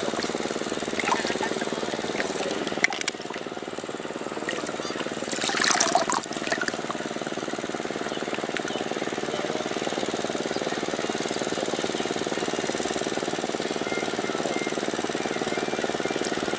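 Small boat's single-cylinder diesel engine running steadily with a fast knocking beat, passing close by. A brief rush of noise about six seconds in.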